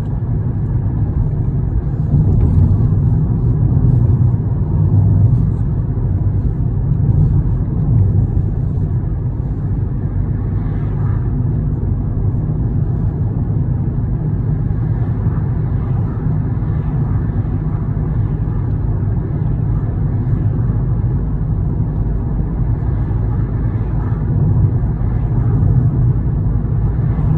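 Steady low rumble of a moving road vehicle, with no let-up and no clear engine note.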